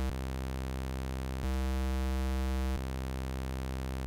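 A low, sustained software-synthesizer note whose oscillator waveform is switched back and forth between a square wave and a sawtooth wave every second and a half or so. The hollower, slightly quieter square-wave tone plays first, then the fuller sawtooth, then the square again, and the sawtooth returns right at the end.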